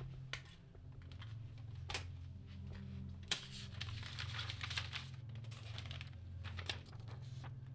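A picture frame taken apart by hand: several sharp clicks and knocks as the backing board and frame are handled, and paper rustling as a sheet is slid out between about three and five seconds in.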